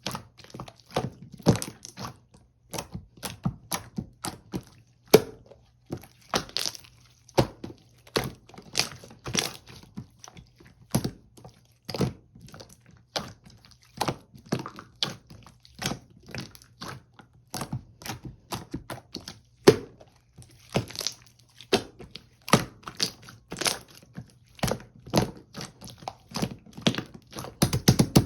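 Slime being squeezed, folded and pressed by hand, making irregular sharp clicks and pops several times a second as trapped air bursts.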